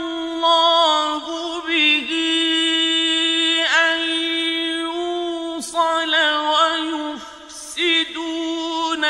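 A solo male voice reciting the Qur'an in melodic tajweed chant. It holds long steady notes, with quick ornamented turns in pitch between them and a brief pause for breath about seven seconds in.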